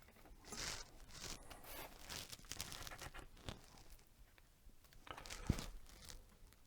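Irregular scratching and crackling from close work on thin headphone wires while they are fluxed and tinned, with one sharp tap about five and a half seconds in.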